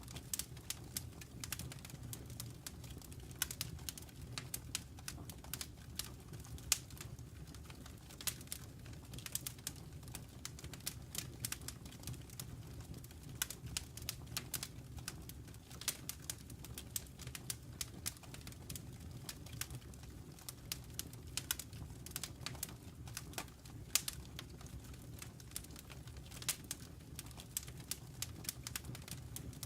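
Wood fire burning in a fireplace, crackling with many irregular sharp pops and snaps over a low steady rumble of the flames.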